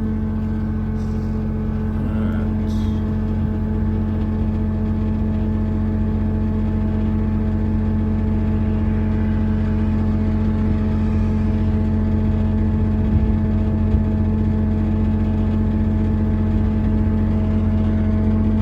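Engine running at a steady, constant speed with an even hum, and a couple of faint ticks in the first few seconds.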